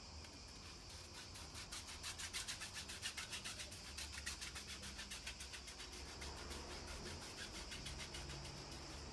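Rapid, even scratchy rubbing strokes on a canvas, loudest in the first half and easing off after a few seconds, as glue is worked into a small cut in a painted canvas.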